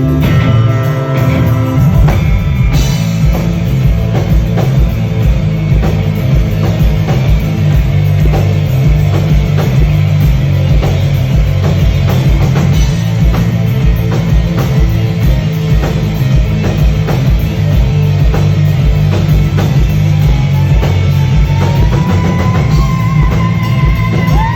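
Live rock band playing an instrumental passage, with a driving drum kit, electric guitar and bass.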